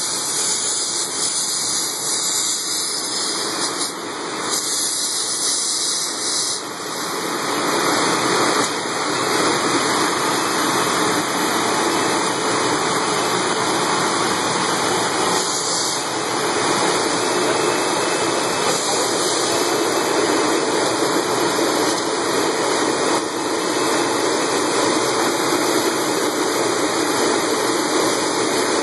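Aloe leaf washing machine running: a steady rush of water from its spray nozzles and recirculating tank, over the hum of its motor and pump. The water noise gets louder about seven seconds in.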